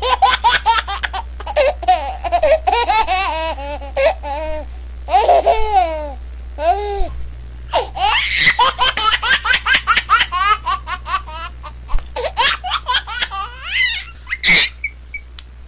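High-pitched laughter in rapid, repeated bursts, going on almost without pause.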